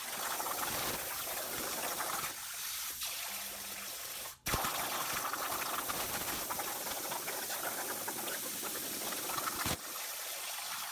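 Plasma torch of a CNC plasma table cutting quarter-inch steel plate at 45 amps: a steady hiss of the arc and cutting air, broken by a brief dropout and click about four and a half seconds in. Near the end the arc stops and the air still blowing from the torch splashes and bubbles the water of the water table.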